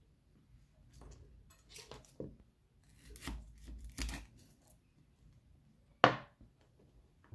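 Kitchen knife cutting through a raw cauliflower stem on a wooden cutting board: several short crunching cuts and taps, then one loud sharp knock about six seconds in.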